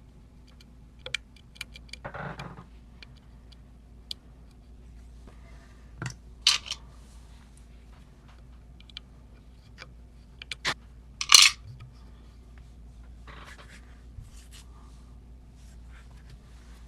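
Small metallic clicks and short scrapes from lock-picking tools and parts of an Emhart lock being handled, with one louder metal scrape and clatter about eleven seconds in.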